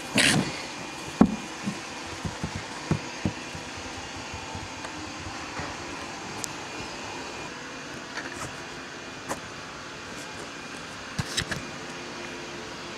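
A cat playing in a fabric pop-up cat tunnel: scattered rustles, taps and soft knocks against the fabric as it rolls and swipes, over a steady background hum.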